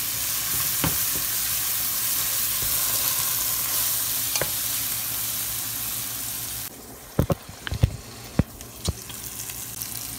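Chopped onions, tomatoes and spices sizzling in hot oil in a frying pan, a steady hiss. About two-thirds of the way through the sizzle drops off suddenly, and several sharp knocks and scrapes follow as a wooden spatula stirs against the pan.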